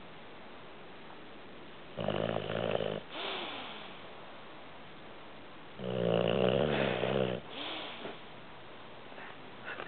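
A sleeping pet snoring: two rattling snores, about two seconds in and again near six seconds, the second one longer. Each is followed by a softer breath with a falling whistle.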